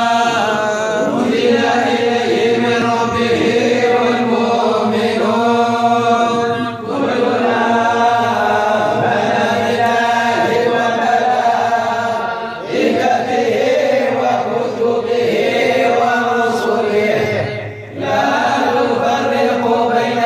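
Men chanting Islamic devotional verses in praise of the Prophet in long melodic phrases, with short breaks between phrases about seven, twelve and a half and eighteen seconds in.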